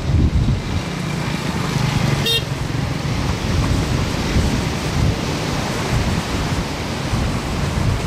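Surf breaking and washing up a sandy beach, with wind rumbling on the microphone. About two seconds in, a brief high toot sounds once.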